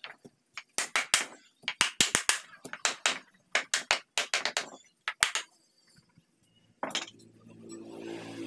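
Hammer blows on a wooden block held against the rail of a wooden headboard frame, knocking the rail into place: about twenty sharp knocks in quick runs, stopping about five seconds in.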